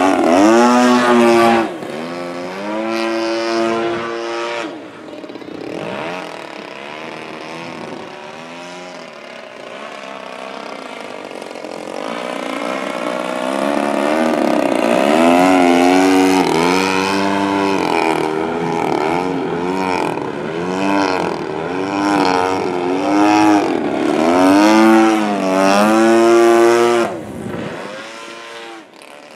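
Single-cylinder two-stroke gas engine (DLE-35RA) and propeller of a 75-inch Extra 330 LT model aerobatic plane flying overhead. Its pitch sweeps up and down again and again with throttle changes and passes. It is loud at the start, fades, then swells again through the middle and drops away near the end.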